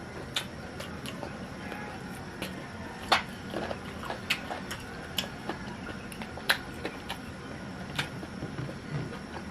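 Someone eating roasted chicken: chewing with irregular wet smacks and clicks of the mouth, about a dozen in all.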